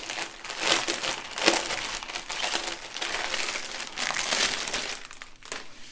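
Crinkling plastic: a clear plastic bag packed with smaller bags of diamond-painting drills being handled, in irregular rustles that thin out near the end.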